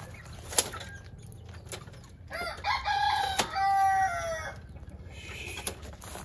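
Rooster crowing once, a call of about two seconds in two parts, the second held and then falling away, starting a little after two seconds in. A single sharp click sounds about half a second in.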